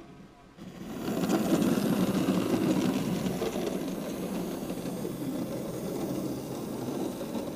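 N-scale model trolley running along the track: a small motor's whir and wheel rumble that builds about a second in as the cars pass close, then slowly fades as they move away.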